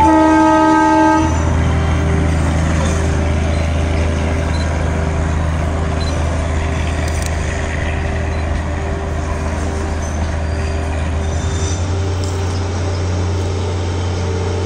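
Darjeeling Himalayan Railway toy train's diesel locomotive sounding its horn, a held chord that cuts off about a second in. Then its engine runs with a steady low drone under the rumble of the moving train.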